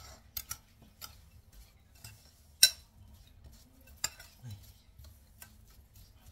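A spoon stirring a mixture of onion and oil in a dish, with scattered clinks of the spoon on the dish; the sharpest clink comes about two and a half seconds in and another about four seconds in.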